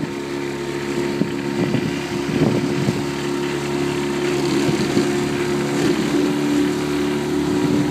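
Motorboat engine running at a steady speed, with an even hum.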